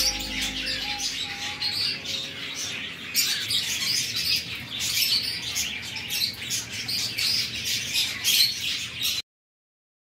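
Many caged pet birds chirping and squawking at once in a dense, busy chatter, with background music fading out over the first two seconds. The sound cuts off suddenly about nine seconds in.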